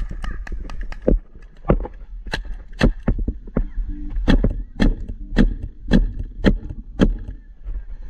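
Paintball marker firing repeatedly: a quick string of shots in the first second, then single shots about every half second until near the end.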